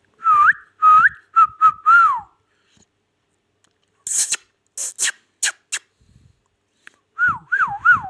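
Indian ringneck parakeet whistling: a few short whistled notes with rising and falling slides, then a few short sharp calls, then a wavering whistle that swoops up and down several times near the end.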